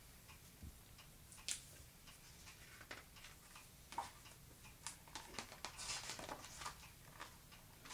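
Faint rustling and scattered light clicks of a hardcover picture book's stiff pages being handled and turned, with a busier run of rustles a little past the middle.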